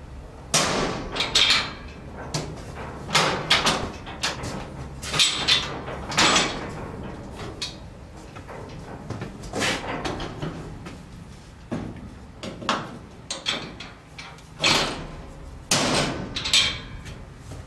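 Metal clanks, knocks and scraping from the folding deck mechanism of an Edwards livestock trailer being worked by hand, a handle and catch on the deck support moved, with irregular clunks that ring briefly.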